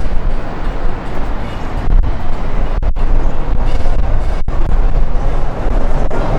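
Gusty wind buffeting the microphone: a loud, steady low rumble, with two very brief dropouts partway through.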